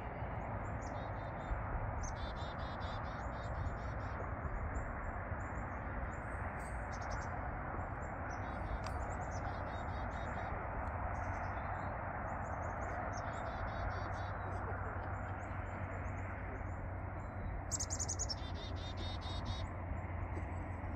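Small birds chirping and singing in short runs of rapidly repeated high notes, most busily near the end, over a steady background rush and low rumble.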